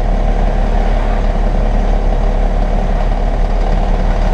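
Loaded truck's engine running steadily with a low rumble, heard from inside the cab.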